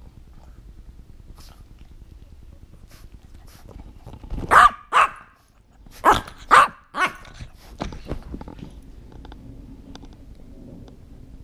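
Dog barking in play: five sharp barks in two quick runs, about four and a half and six seconds in, with faint ticks and rustles between them.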